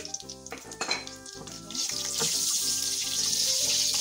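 Whole red chillies, cumin, coriander seeds and red chilli powder sizzling in hot oil in a kadhai for a tadka. The sizzle is faint at first, then jumps to a loud, steady hiss about two seconds in as the oil froths up around the spices.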